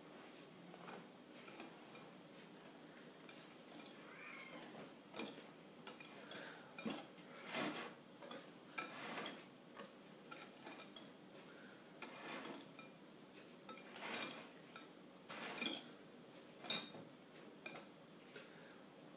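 Wire whisk clinking and scraping against a glass mixing bowl in irregular light taps while stirring sugar into stiffly beaten egg whites.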